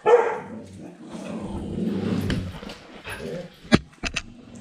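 A dog barks once at the start, then makes a low rumbling sound for about a second and a half. Three sharp clicks or knocks follow near the end.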